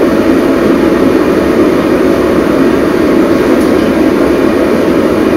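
Steady, loud rumble of a moving vehicle heard from inside, engine and road noise running evenly without any change in speed.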